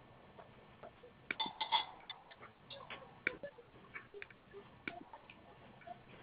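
Irregular light clicks and taps, two or three a second, loudest in a quick cluster about a second and a half in.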